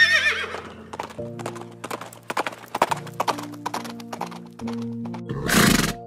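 A horse whinnies, one quavering call falling in pitch, followed by a run of hooves clip-clopping for several seconds and a short, loud rush of noise near the end, over background music with held notes.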